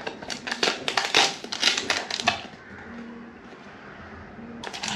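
Packaging being handled and rustled during an unboxing: a quick run of crackles and rustles for about two seconds, then a quieter stretch, with more crackling starting just before the end.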